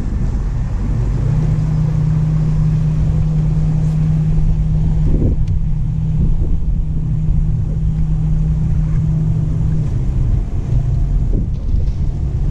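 Wind rumbling on the microphone, with a steady motor hum that starts about a second in and stops about ten seconds in.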